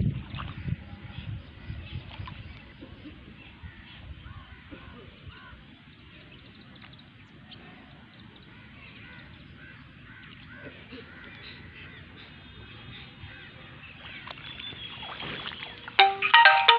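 Birds calling faintly over low, steady wind rumble on the microphone. Near the end a much louder sound with several held tones cuts in, a voice or music.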